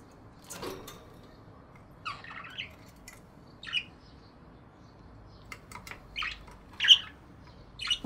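Budgerigars giving short, scattered chirps and squawks with pauses between them, the loudest a sharp squawk about seven seconds in.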